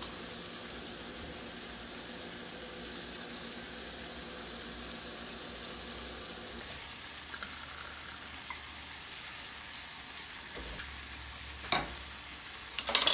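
Smashed small potatoes frying in a cast-iron skillet, a steady soft sizzle, with a couple of short clicks near the end.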